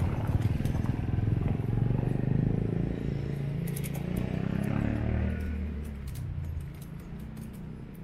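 A motor vehicle's engine running close by, a low rumble that is loudest for about the first five seconds and then fades away, with a few light clicks around the middle.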